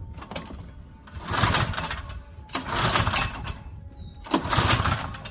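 Three pulls on the recoil starter of a Craftsman snowblower's 123cc four-cycle overhead-valve engine, each a rasping whir of rope and cranking engine lasting about a second. The engine turns over but does not fire.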